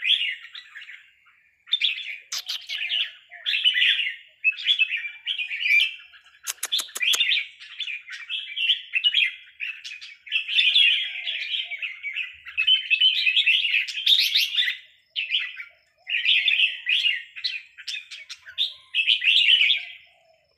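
Caged red-whiskered bulbuls of the Burmese strain singing, one short chattering phrase after another with brief pauses between. A quick run of sharp clicks comes about six and a half seconds in.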